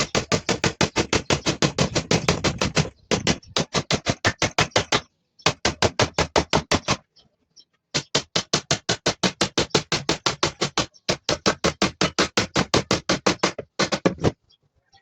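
A hand tool working wood with fast, even strokes, about seven a second, in runs of one to three seconds broken by short pauses.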